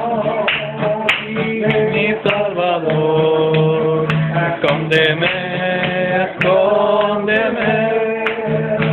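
A man singing a religious praise song in long held notes while strumming an acoustic guitar.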